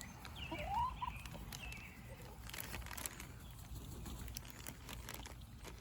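Short calls from backyard domestic ducks and geese, bunched in the first second or so, the loudest a brief rising call, followed by scattered faint clicks and taps.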